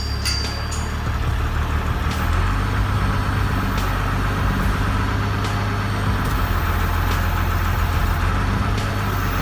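A heavy machine's engine running steadily with a low hum, its note shifting about two seconds in, with a few faint clicks over it.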